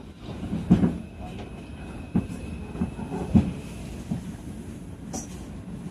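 Inside an R142 subway car: a steady low rumble broken by a few heavy knocks, the loudest about a second in and again about three and a half seconds in.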